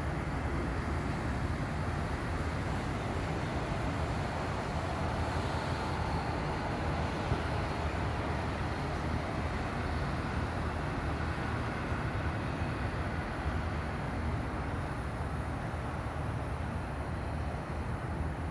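A steady, continuous hissing noise of unknown origin, with no distinct beats or tones.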